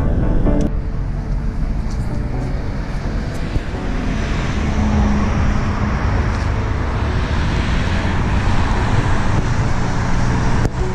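Steady road traffic noise, a continuous wash of vehicles and tyres.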